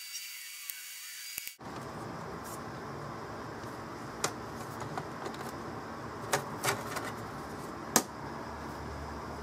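A few sharp clicks and taps, as of small parts or tools being handled, over a steady hiss. The sound changes abruptly about a second and a half in.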